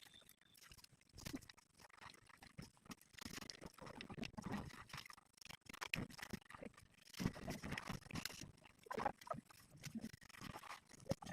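Farm animals making irregular short, low sounds, mixed with scattered clicks.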